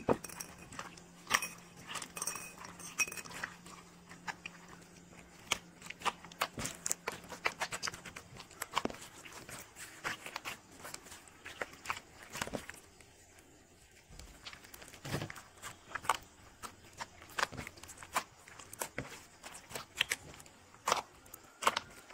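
Clear crystal slime mixed with small plastic beads and charms being kneaded and pinched by hand, giving off irregular sharp pops and clicks.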